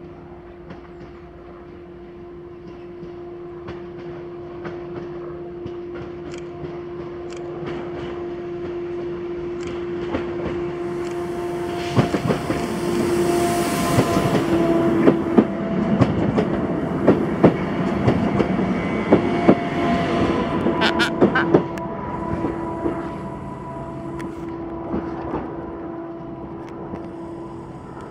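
Newag Impuls 2 electric multiple unit approaching and running along the platform close by, growing steadily louder to a peak in the middle. Its wheels click sharply over rail joints as it passes, and a steady humming tone runs throughout.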